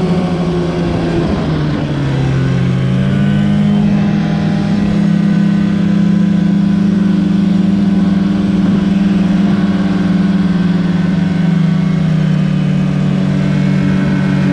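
Snowmobile engine running at steady high revs while driving through deep powder snow. The revs dip briefly and pick up again about two seconds in.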